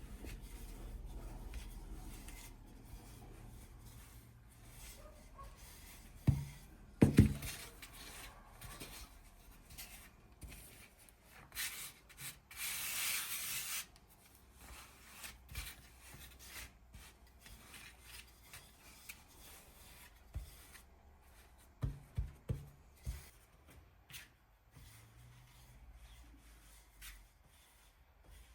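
Hand work in a small kitchen during cooking: rubbing and handling sounds, with a few sharp knocks about six to seven seconds in, a loud hiss lasting about two seconds near the middle, and a cluster of clicks later on.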